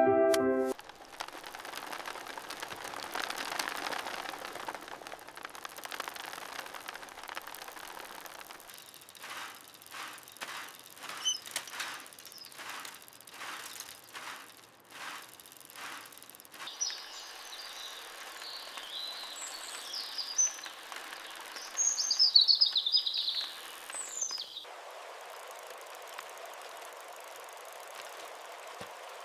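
Countryside ambience: a steady soft hiss of breeze, a run of short crunches on gravel from about nine to sixteen seconds in, and small birds chirping in quick twittering phrases between about seventeen and twenty-four seconds in.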